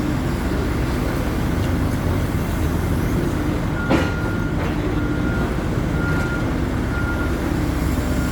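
Hidromek 140LC excavator's diesel engine and hydraulics running under load, a steady rumble with shifting hum. A single sharp clank about four seconds in, followed by a short high tone repeating about once a second.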